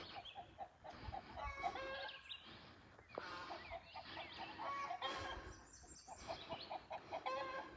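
Domestic hens clucking faintly in runs of short, repeated calls. This is the noisy clucking that the keeper puts down to a hen laying an egg.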